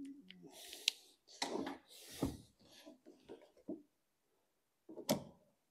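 Plastic push-fit waste pipe and fittings being handled and offered up to a basin trap: short rubbing scrapes of plastic on plastic and a couple of sharp clicks, the sharpest one near the end.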